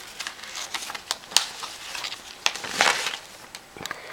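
Glossy catalog pages rustling and crinkling as they are handled and turned, a run of small crackles and clicks with a longer rustle about three seconds in.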